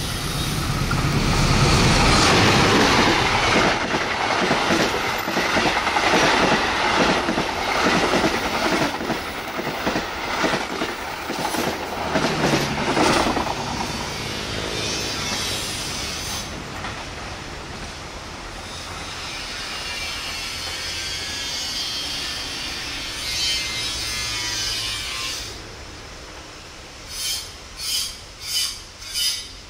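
Passenger train hauled by a diesel locomotive passing close by. The locomotive's engine is heard at first, then the coaches' wheels clatter rhythmically over the rail joints, and the sound fades as the train moves away. Four louder bursts of wheel noise come near the end.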